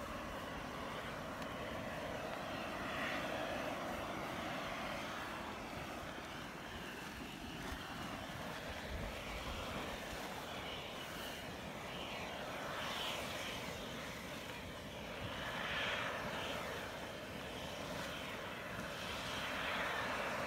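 Small geyser boiling and splashing up in its pool, a steady rushing noise that swells in several surges.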